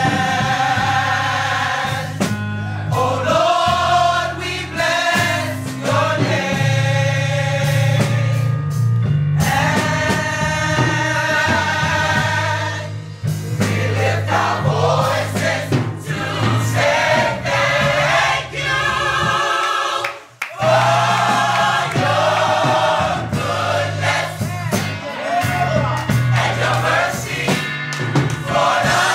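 Gospel mass choir singing in harmony with a band, a strong bass line underneath.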